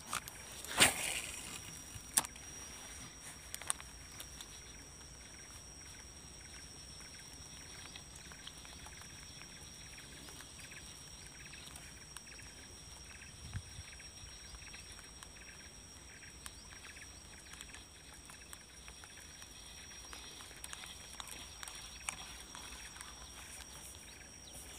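Quiet swamp ambience: a steady high insect whine over a soft hiss, with a faint chirp repeating about twice a second through the middle. A sharp knock about a second in and a few smaller clicks in the next few seconds come from the fishing rod and reel being handled.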